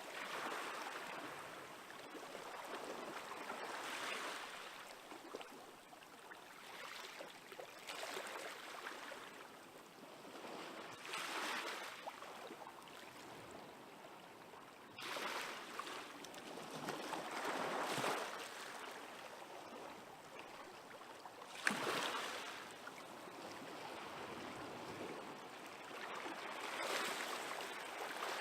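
Small waves of a calm sea washing onto the shore, a soft rush of surf swelling and fading every three to four seconds, with a slightly sharper break twice.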